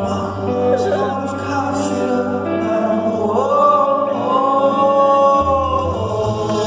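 Male voice singing live over band accompaniment, settling into one long held note about halfway through.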